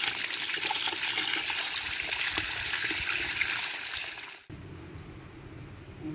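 Running water splashing steadily, cut off abruptly about four and a half seconds in, leaving a much quieter background.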